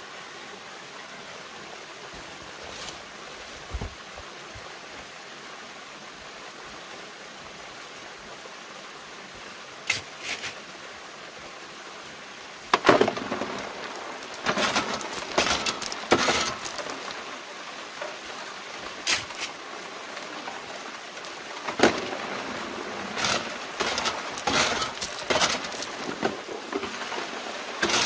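Water pouring from a pipe onto a steel gold sluice, with shovelfuls of creek gravel dumped onto its metal classifier screen and rattling down it. A steady rush fills the first half; about halfway through the water grows louder and the gravel clatters come repeatedly.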